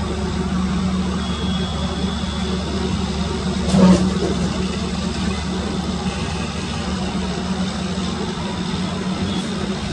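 Passenger train running at speed, heard from a coach doorway behind its EMD diesel locomotive: a steady rumble of wheels, rails and engine, with one loud sharp knock just before four seconds in.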